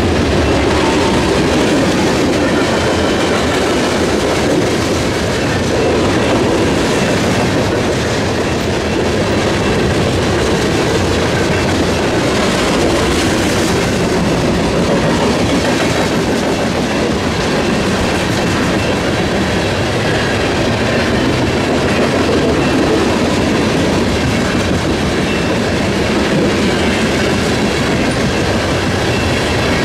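Loaded coal cars of a freight train rolling steadily through a grade crossing, their wheels clattering over the rails.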